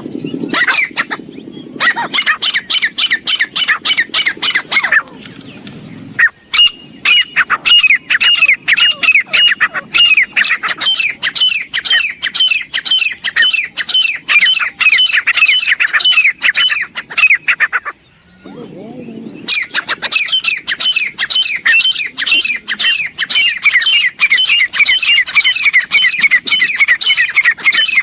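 Grey francolin calling: long runs of rapid, evenly repeated high notes, each falling in pitch, in three bouts that break off briefly about 6 and 18 seconds in.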